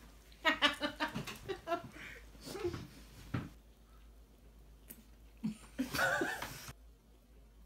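Women laughing: a run of quick giggles in the first two seconds, a few more laughs after, then a short high laugh about six seconds in.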